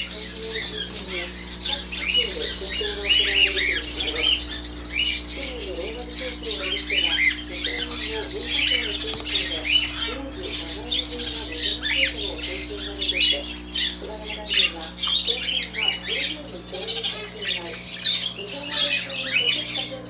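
A crowd of caged budgerigars chattering, a dense, unbroken mix of short high chirps and warbling calls, over a steady low hum.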